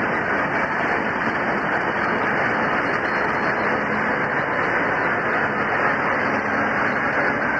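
Diesel locomotives of a freight train working under load as they pass, then container wagons rolling by on the track; a loud, steady mechanical noise throughout.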